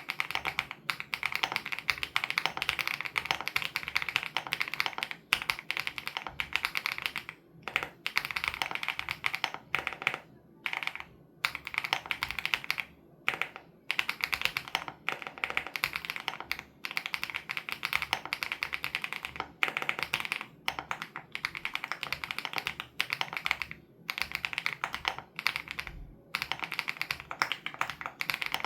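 Fast, continuous typing on a WOB Crush 80 Reboot custom mechanical keyboard with Hyacinth switches, a thocky keystroke sound. It comes in long rapid runs of key presses with several brief pauses.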